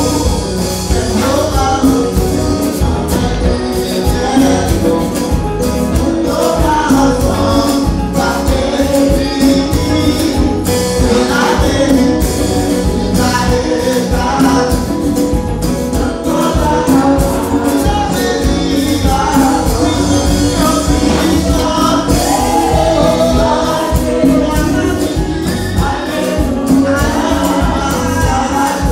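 Praise and worship music: voices singing together over steady percussion.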